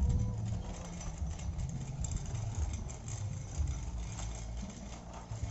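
Toy RC dump truck running with a steady engine-like rumble as it tows a toy road roller across concrete.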